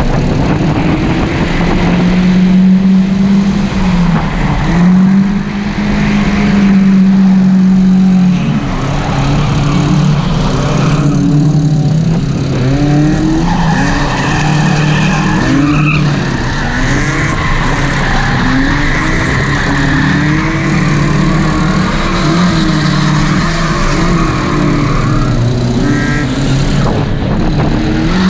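Drift car engine revving up and down hard under throttle during a close tandem drift. Tires squeal steadily through much of the second half as the cars slide sideways.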